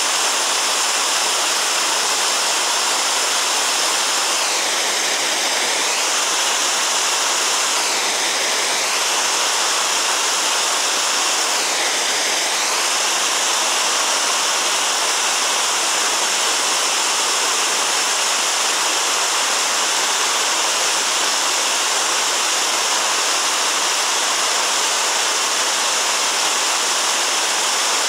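Fast mountain creek rushing over rocks in rapids: a loud, steady rush of whitewater.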